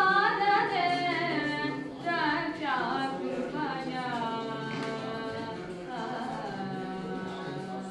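A young woman singing a devotional song solo in Carnatic style, her voice sliding and ornamenting the notes in long, unbroken phrases.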